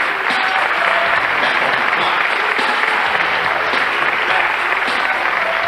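Studio audience applauding steadily as a guest comes on stage.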